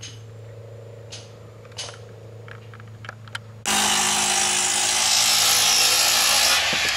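A few light knocks over a low steady hum, then about two-thirds of the way in a circular saw starts abruptly and runs loud, cutting through a wooden fascia board.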